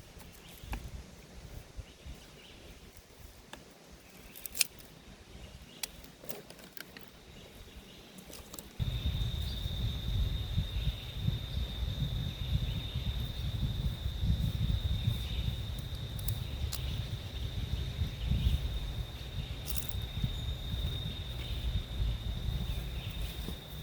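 Outdoor ambience: a few scattered light clicks, then, starting suddenly about nine seconds in, wind rumbling on the microphone together with a steady high-pitched drone, like an insect's call, that holds to the end.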